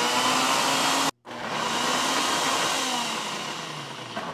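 Ninja single-serve blender motor running at full speed, chopping a thick mix of pulled pork and cream cheese. It cuts out for a moment about a second in, starts again, and winds down near the end as the blending finishes.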